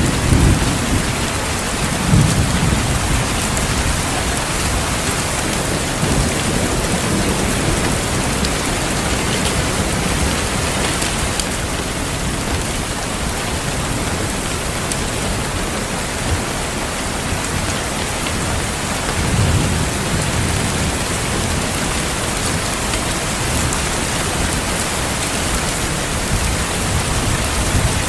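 Steady heavy rain with low rolls of thunder, one near the start, another about two seconds in and a longer one about two-thirds of the way through.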